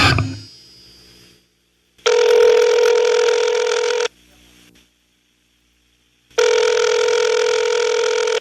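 Telephone ringing twice, each ring a steady electronic tone lasting about two seconds with a pause of about two seconds between them, after the band's last chord dies away in the first second.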